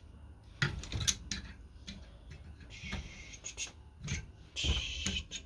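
Hand tools working an old steel spring: scattered light clicks and knocks, with two short scraping sounds, one about three seconds in and one near the end.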